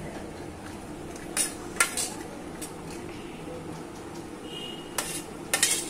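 Kitchen utensil knocking and clinking against a mixing bowl several times, with a cluster of knocks near the end, over a steady low hum.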